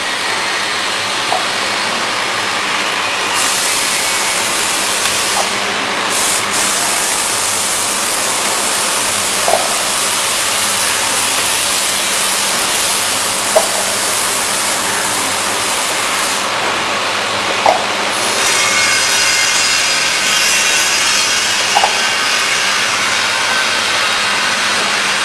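FB-CFBC automatic water cup filling and sealing machine running: a steady mechanical clatter and hiss, with a short sharp knock about every four seconds as the machine goes through its cycle.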